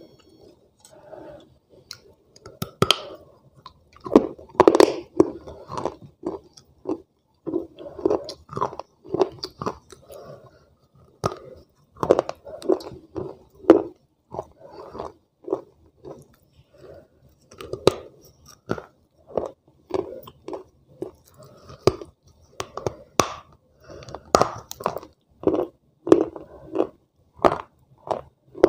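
Close-up crunching and chewing of soaked clay-pot pieces: many sharp, brittle crunches at irregular intervals, with grinding chewing between them.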